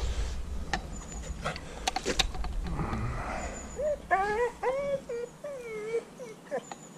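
Dog whining: a run of short, wavering whimpers in the second half, after a few light clicks and knocks near the start.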